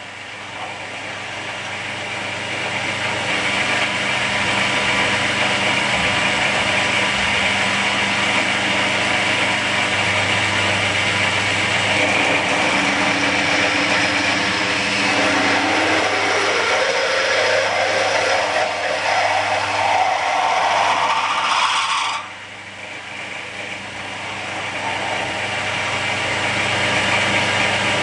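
Milling machine running, its cutter boring holes into an aluminium plate: a steady mechanical cutting noise. A rising whine builds over several seconds, then the sound drops abruptly about 22 seconds in and builds back up.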